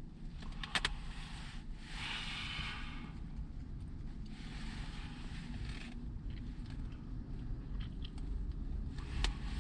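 Low steady rumble inside a car cabin, with two stretches of rustling or scraping and a couple of sharp clicks, one about a second in and one near the end.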